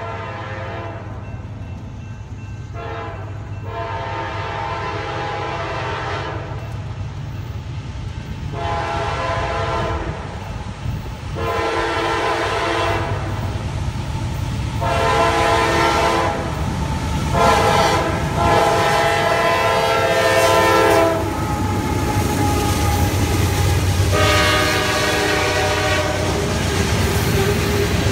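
Freight train's multi-note locomotive air horn blowing a series of long blasts as it approaches a grade crossing, the longest and loudest in the middle, over a low diesel rumble that grows as the train nears. Near the end the freight cars rattle past on the rails.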